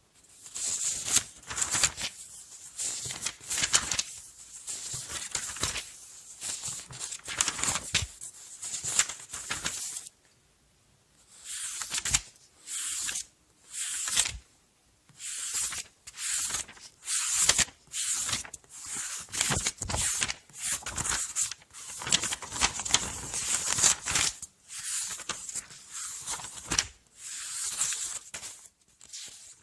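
Paper pages being turned one after another, each turn a short papery swish and rustle. There is a pause of about a second and a half near the middle.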